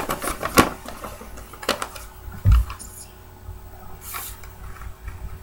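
A sheet of paper being folded and creased by hand: scattered crisp crackles and rustles, with a dull low thump about two and a half seconds in and a short swishing rustle near the end.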